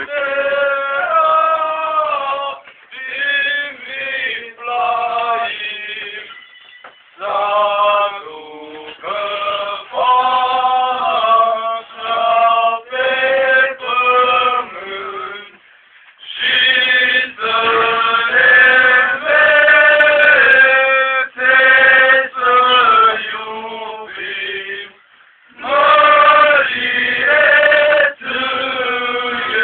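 Male voices singing a Christmas song from the Romanian Vifleim nativity play, in sung lines a few seconds long with short breaks between them.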